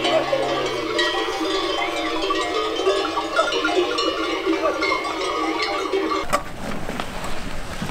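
Many goat bells jangling together as a grazing herd of goats moves across a rocky slope. The ringing cuts off abruptly about six seconds in.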